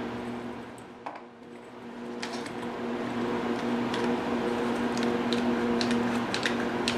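A few light, sharp clicks and taps as the snug-fitting metal and plastic parts of an anti-backlash nut are pressed together with a one-handed bar clamp, over a steady low hum.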